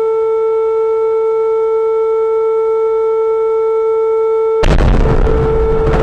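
Emergency alert tone: one steady held pitch with overtones. About four and a half seconds in, a sudden loud blast of noise, like an explosion, breaks in over it, and the tone keeps sounding underneath.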